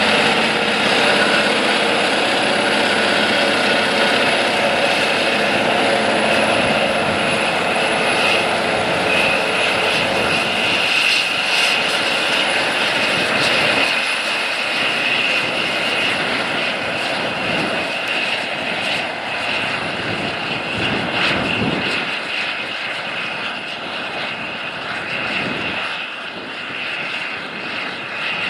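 John Deere 9620RX four-track tractor's 15-litre Cummins six-cylinder diesel working under load while pulling a chisel plow through the ground, a steady heavy drone with a high whine over it. The sound fades slowly as the tractor moves away.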